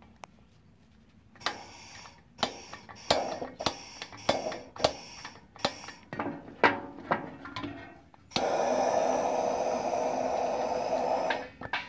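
Pellet burner hopper and burner box being handled: a string of irregular metal knocks and clanks, then, about eight seconds in, a loud steady rushing hiss that breaks off briefly near the end.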